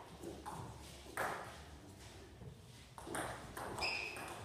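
Table tennis ball being struck back and forth in a doubles rally: sharp pings of the ball off bats and table, several strikes at uneven spacing. A short squeak near the end.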